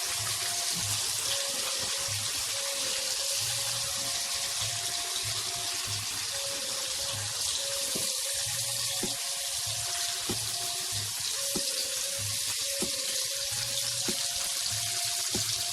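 Marinated chicken pieces frying in hot oil, with a steady, even sizzling hiss.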